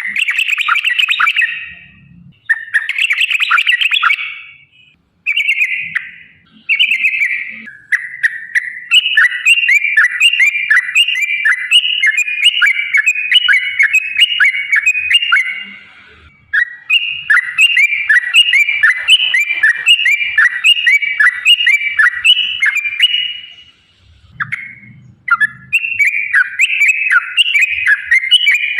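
Yellow-vented bulbul (trucukan) calling: a few short chattering bursts, then two long runs of rapid, evenly repeated bubbling notes, a break of about a second between them, and more short bursts near the end.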